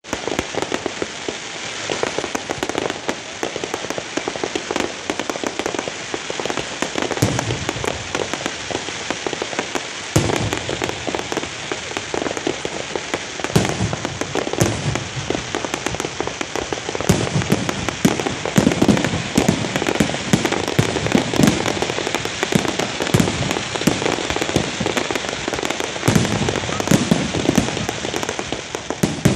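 Fireworks display: a continuous dense crackle of many sharp pops, with deeper bangs mixed in from about seven seconds in.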